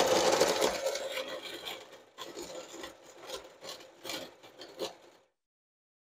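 De'Longhi TrueBrew's built-in conical burr grinder grinding coffee beans: a loud grinding that fades over about two seconds into a sputter of short rattling bursts, then stops a little after five seconds in.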